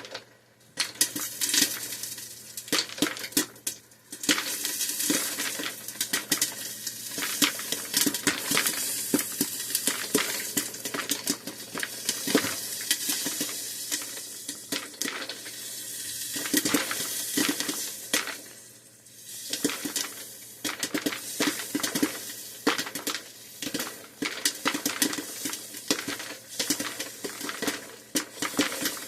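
Popcorn kernels popping in a Pampered Chef Pop and Stir popper as the batch heats: a dense, irregular run of sharp pops and rattles, thinning briefly about 4 and 19 seconds in.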